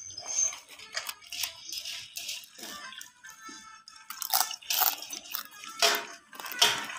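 Crisp fried snacks and popcorn rustling and crunching as a hand stirs and scoops through them on a tray, in irregular bursts, the loudest in the second half.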